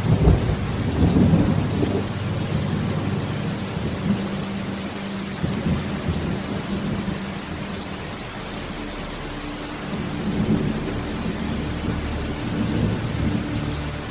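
Steady rain with rolling thunder. Deep rumbles swell in the first two seconds and again from about ten seconds in.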